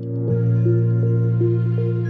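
Background music: a calm tune with a held low note under a slowly moving melody.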